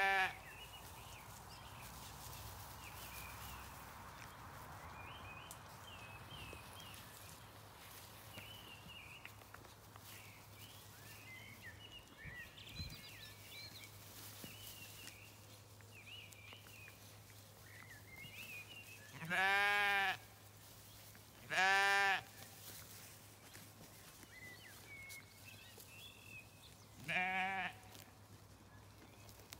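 Zwartbles sheep bleating in wavering calls: one at the very start, then three more in the last third, two close together and one near the end.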